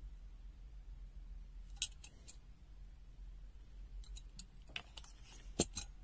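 Light metallic clicks from a pair of Lobster TP200 steel slip-joint pliers being opened, closed and handled. A couple of clicks come about two seconds in, then a quicker cluster near the end with one louder click.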